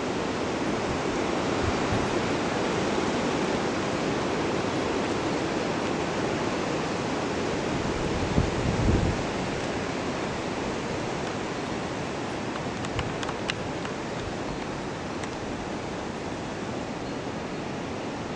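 Strong wind rushing through swaying oak trees, a steady wash of noise like surf. About eight to nine seconds in, a gust buffets the microphone with a short low rumble.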